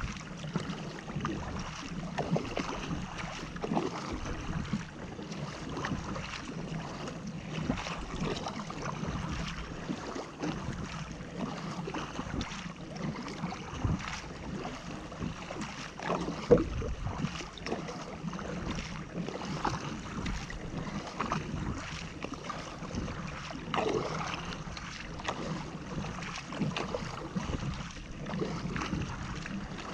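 Double-bladed paddle strokes splashing into the water as a sit-on-top fishing kayak is paddled hard, with water washing along the hull and wind rumbling on the microphone.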